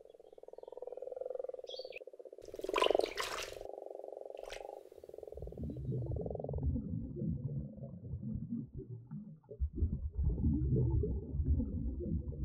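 A chorus of common frogs giving low, rapid purring croaks at their spawning pond for about the first six seconds, with a brief loud rushing burst about three seconds in. After that comes low, irregular rumbling and gurgling, heard from underwater.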